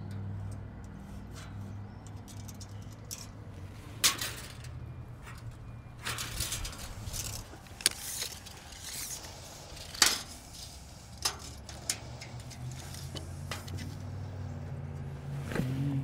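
A tape measure being handled and marks being made against a steel shipping container's corrugated wall: scattered clicks, taps and light metallic rattles over a steady low hum.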